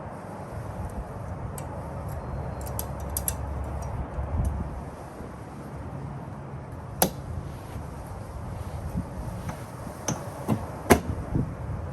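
Scattered sharp clicks and taps of hand work on the Toyota Celica's fuel filler door lock, with two louder clicks about seven and eleven seconds in, over a steady low background noise.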